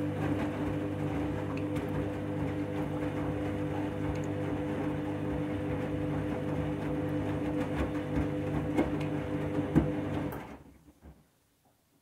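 Front-loading washing machine running with its drum turning a wet, tangled load: a steady motor hum with a few steady tones and occasional knocks. About ten and a half seconds in it cuts out and the machine goes quiet.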